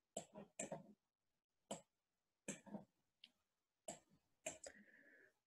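Faint, irregular clicks of a computer mouse, about eight in all, over near silence.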